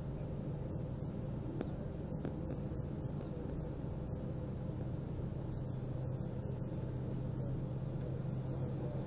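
Steady low hum of an idling car engine, heard from inside the parked vehicle.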